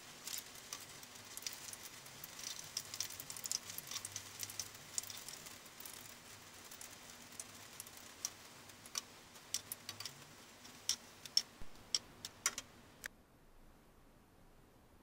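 Battered Korean melon peel frying in shallow oil in a frying pan, sizzling with a dense run of crackles and pops. A few sharper, louder clicks come later, as metal tongs turn the pieces, and the frying sound cuts off suddenly about 13 seconds in.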